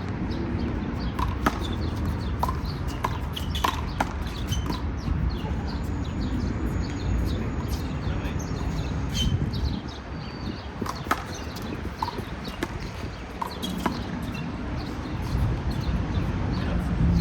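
Rubber handball being played: sharp, irregularly spaced smacks of the ball off hands, the wall and the pavement, over a steady low outdoor rumble.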